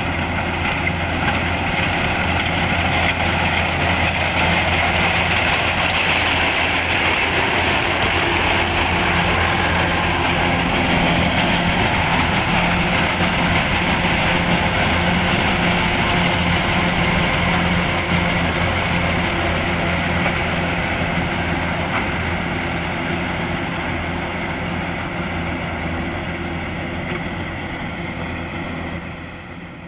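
Kubota DC-105X rice combine harvester's diesel engine running steadily, dropping off in level near the end.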